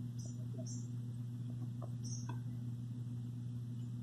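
Sparton Equasonne console radio humming steadily while its dial is tuned between stations, with faint crackle. A few short high chirps come through over the hum.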